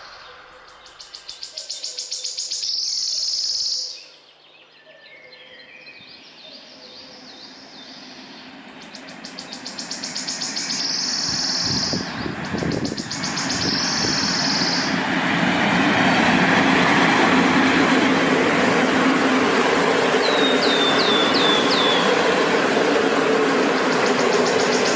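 Passenger train hauled by an electric locomotive approaching and then running past, its wheels and coaches building from about halfway into a steady loud rush of rolling noise. Earlier there are spells of rhythmic high chirping, and a few short falling chirps sound over the passing train.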